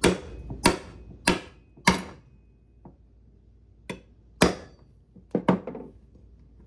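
A hammer taps the top of a steel axle rod four times, about 0.6 s apart, driving a plastic axle cap onto the rod's end. A few more scattered knocks follow about four to five and a half seconds in.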